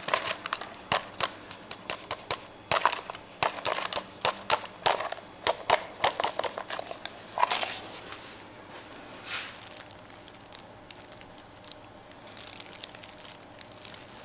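Ice cubes cracking and clinking in a glass as a drink is poured over them: a quick run of sharp clicks and cracks that thins out to occasional ticks in the second half.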